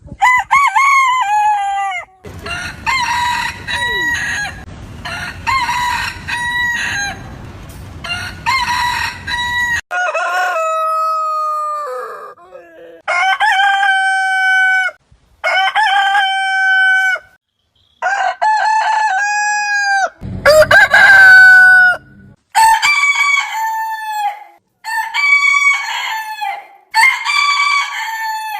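Roosters crowing, about a dozen crows one after another from several different birds, each a long cock-a-doodle-doo with a held middle note that falls away at the end. Some crows stop abruptly, and a low rumble sits under a few of them.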